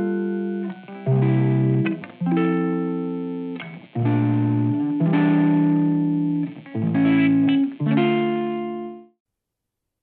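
Soft instrumental background music: a slow run of plucked notes and chords, each left to ring out. It cuts off about nine seconds in, leaving silence.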